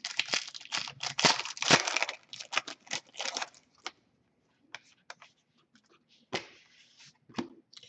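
Foil wrapper of an Upper Deck SPx hockey card pack being torn open and crinkled for about the first three seconds. Then come a handful of short, sharp flicks and slides as the cards are thumbed through.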